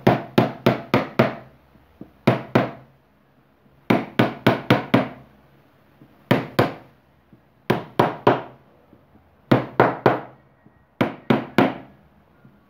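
Hammer tapping the misaligned stator coil of an electric fan motor to knock it back into alignment in its housing: sharp taps in quick bursts of two to six, with pauses of a second or two between bursts.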